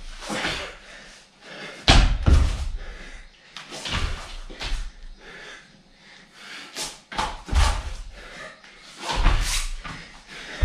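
Thuds of feet and hands landing on a yoga mat over a tiled floor during fast-paced sun salutations, several heavy landings a few seconds apart, with hard, quick breathing between them.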